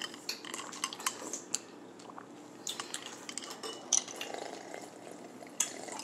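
Drinking the leftover coconut water straight from a tilted bowl: sips of liquid with light clinks against the bowl.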